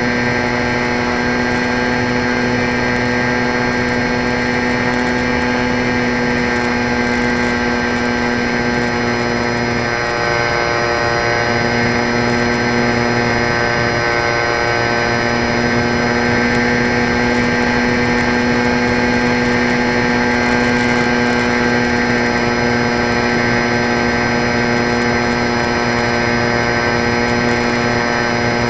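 Electric motor and propeller of an EP Falcon 3 radio-controlled plane running steadily in flight, heard through a camera mounted on the plane: a steady whining hum of many even tones. The lowest tone drops out briefly about ten seconds in and again around fourteen seconds.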